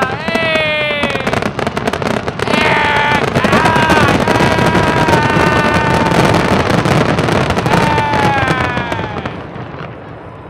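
Fireworks finale: dense crackling and rapid bangs that swell a couple of seconds in and die away near the end. Several long tones slide down in pitch over the bangs.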